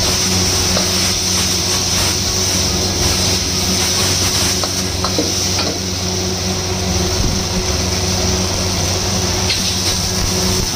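Meat sizzling in a carbon-steel wok as a metal spatula stirs it, with a few scattered scrapes and clicks of the spatula against the wok, over a steady low hum.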